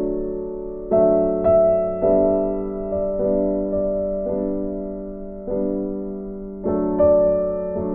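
Background music of slow piano chords, each struck and left to ring and fade, with a new chord about every second.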